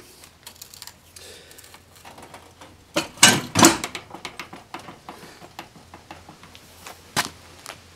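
Irregular metallic clicking from tools and hardware, with two louder metal clanks a little after three seconds in and a sharp click near the end, during work under a car lowering the jack that holds up the engine and transmission.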